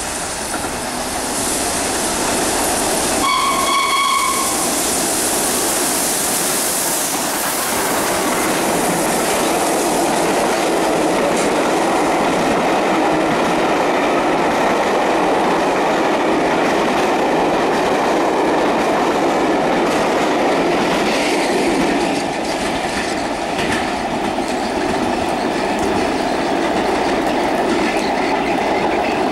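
LNER Peppercorn Class A1 steam locomotive 60163 Tornado passing through without stopping: a loud high hiss as the engine goes by, one single-note whistle blast lasting about a second and a half some three seconds in, then the steady clickety-clack of its coaches' wheels running past.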